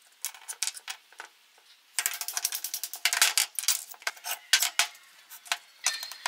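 Hard lamp parts clicking and clattering against each other and the tabletop as an antique lamp's stem is dismantled: a short run of clinks in the first second, then a longer, busier clatter. Music comes in near the end.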